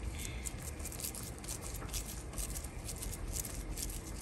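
Soft wet squishing of oiled hands pressing and patting a ball of mashed plantain, made of many small sticky clicks.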